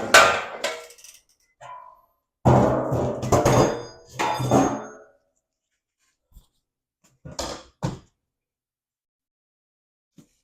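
Metal clanking and rattling with a ringing tone: a sharp hit at the start, a run of clanks about two and a half to five seconds in, and two short knocks near eight seconds, as steel tools or parts of the garage door hardware knock together.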